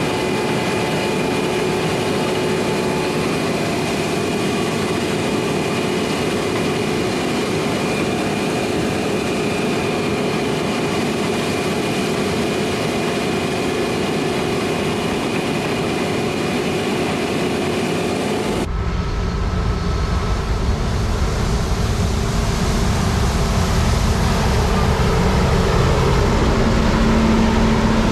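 Heavy harvest machinery running steadily, a machine noise with several steady whines. About two-thirds of the way through, it changes abruptly to a deeper, heavier engine sound with a low steady hum that swells slightly near the end.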